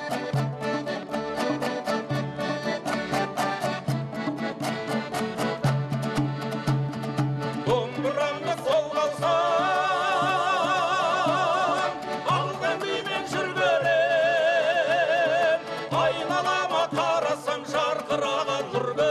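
Kazakh folk music: rapid dombra strumming with syrnai accordion. About halfway through, a singer comes in with long held notes in strong vibrato.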